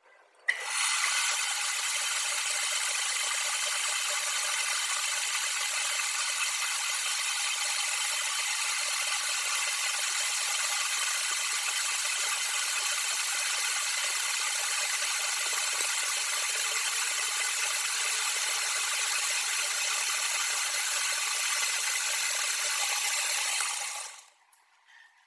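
Metal lathe turning a rusty steel bar, the cutting tool peeling it down to bright metal: a loud, steady cutting noise with several steady whining tones in it. It starts abruptly about half a second in and dies away about a second before the end.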